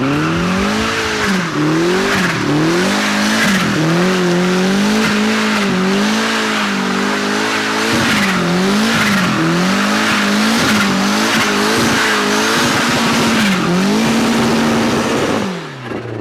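Turbocharged Mazda Miata four-cylinder engine revved hard again and again, at times held at a steady high pitch, over a constant screech of spinning tyres as in a burnout. Near the end the revs fall away.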